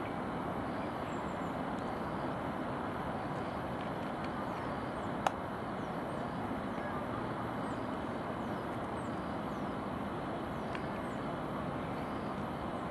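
Steady distant traffic and city noise from far below, with faint high chirps and one short click about five seconds in.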